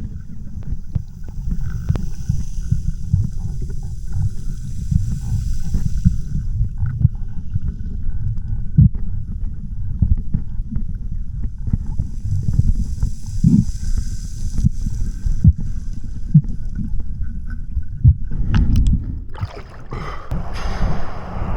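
Rough sea water sloshing and churning around a swimmer: a dense low rumble with scattered knocks. Near the end a brighter rushing hiss of wind and surf rises.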